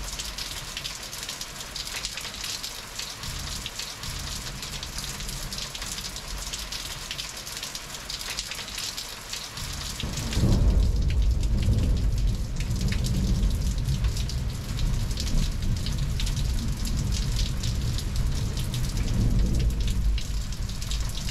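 Heavy rain falling steadily in a thunderstorm. About halfway through, a long, deep roll of thunder breaks in suddenly and keeps rumbling under the rain.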